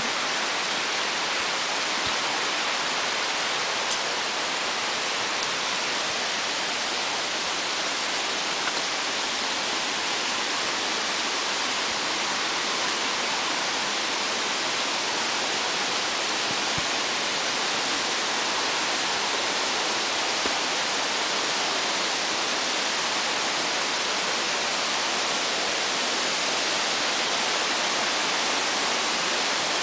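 A mountain stream rushing steadily, an even hiss of flowing water with no change.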